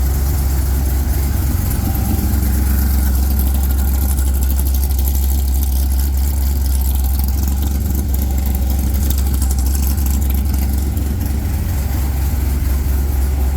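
Sand car engine idling steadily.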